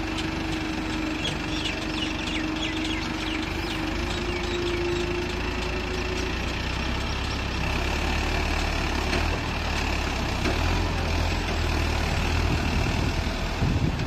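Tractor diesel engine running steadily while its hydraulics raise a loaded tipping trolley. The engine note grows louder and heavier from about halfway through as the bed tilts up. Near the end the mud starts to slide out of the trolley.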